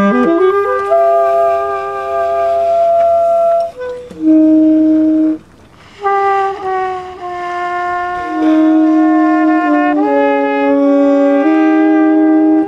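Tenor saxophone and trumpet playing long, slow held notes together in a jazz duet, two pitches often sounding at once. The notes shift pitch in steps. There is a brief pause about five and a half seconds in.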